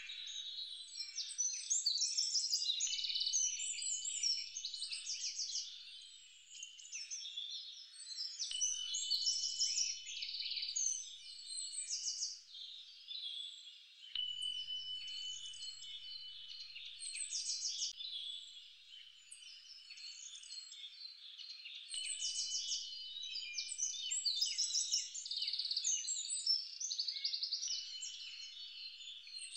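A dense chorus of birds chirping and trilling, many calls overlapping. A thin, steady whistle held for a second or two recurs every few seconds.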